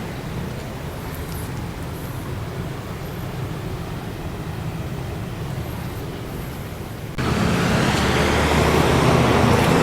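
Steady outdoor noise with a low hum, then a sudden jump about seven seconds in to louder road traffic noise from vehicles passing through a street intersection. The siren is not sounding.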